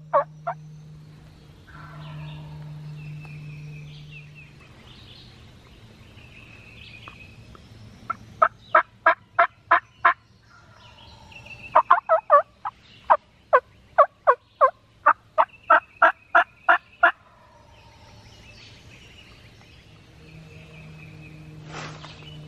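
Turkey yelping in two loud runs of evenly spaced yelps, about three a second. A short run comes about eight seconds in and a longer one from about twelve to seventeen seconds, with faint songbird chirps between.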